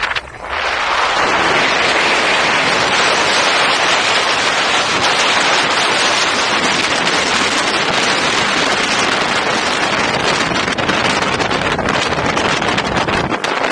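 Loud, steady wind rushing over the camera's microphone while moving at about 50 km/h, building up over the first second.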